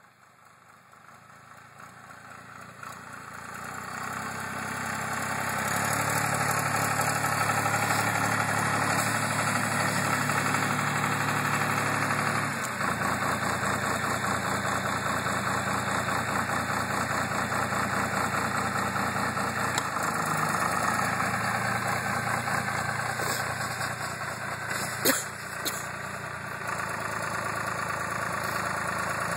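Jinma SL3105T three-cylinder diesel engine of a homemade articulated loader running under way, growing louder over the first few seconds as the machine comes closer, then steady. A single sharp clack about 25 seconds in.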